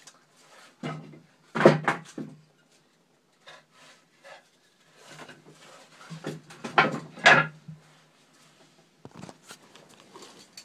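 Short scrapes and knocks of wooden strips being handled, in two clusters: about two seconds in, and again around six to seven seconds in.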